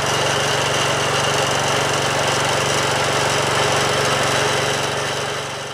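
Wheel Horse 416-8 garden tractor's Kohler Magnum 16 hp engine running steadily just after a cold start, which took about three seconds of cranking with an electric fuel pump added to help. The sound falls away near the end.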